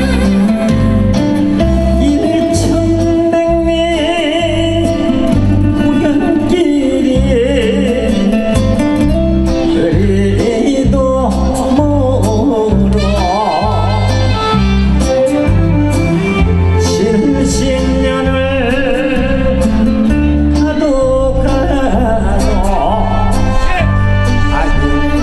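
A singer performing a song over backing music with a steady beat; the voice wavers in vibrato on held notes.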